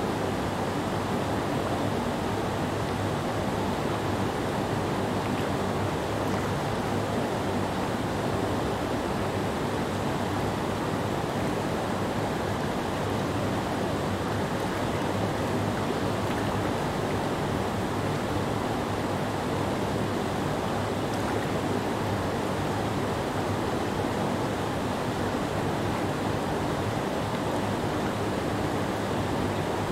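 Whitewater rapids on Silver Creek pouring over a rock ledge: a steady, full rushing roar of tumbling water with no change in level.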